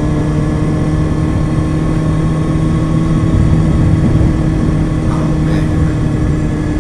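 Kawasaki ZX-6R 636 inline-four engine running at steady revs while riding, with heavy wind noise buffeting the helmet camera's microphone.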